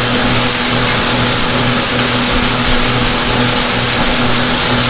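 Chicken drumsticks deep-frying in a pot of hot oil: a loud, steady sizzle, with a faint low hum underneath.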